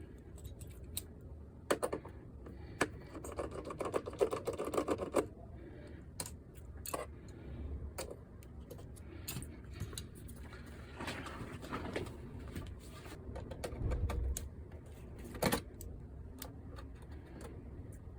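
Hard plastic clicks, taps and knocks from a PlayStation 5 console being handled and taken apart, with a run of fast rattling clicks about three seconds in.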